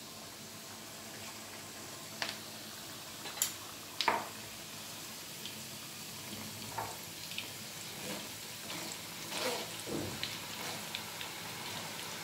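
Moong dal deep-frying in hot oil in a mesh strainer set in a kadhai: a steady sizzling hiss with scattered sharp clicks and pops, the loudest about three to four seconds in.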